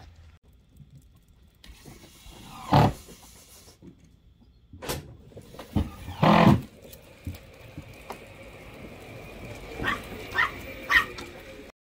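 A small dog barking several times, a few seconds apart, ending with three short barks in quick succession.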